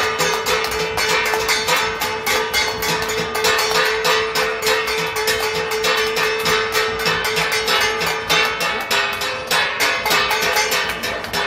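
Hand clapping and a steel thali plate beaten with a stick, making a fast, uneven clatter of many strikes. Over it a single long, steady tone is held, dropping slightly in pitch about three-quarters of the way through.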